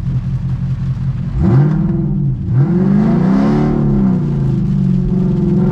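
Chevrolet Camaro's engine revving hard under a launch on a wet road, heard from inside the cabin: after a steady note the pitch climbs sharply about a second and a half in, dips briefly, then climbs again and eases back to a steady run.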